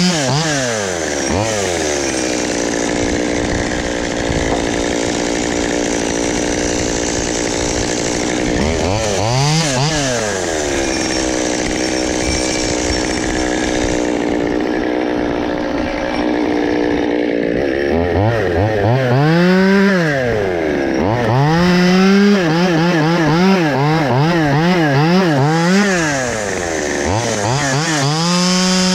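Two-stroke chainsaw with a freshly filed chain, making test cuts in a log. It revs up and settles to a steady, slightly lower pitch while cutting, twice. For the last third it is blipped up and down on the throttle several times.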